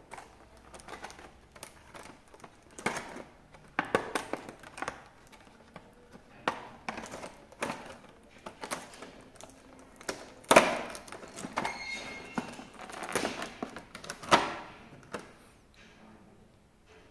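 Hands unpacking a boxed action figure: irregular clicks, taps and rustles of plastic and cardboard packaging being handled, with two louder knocks, one about ten and a half seconds in and another a few seconds later.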